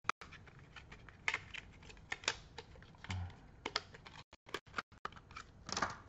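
Scattered small, sharp clicks and taps as a RAM module is fitted and seated in a laptop's memory slot.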